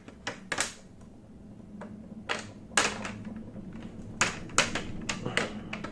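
Plastic clips of a Lenovo Y50-70 laptop's display bezel snapping loose as the bezel is pried off with a card: a run of sharp clicks, about ten in all, coming irregularly.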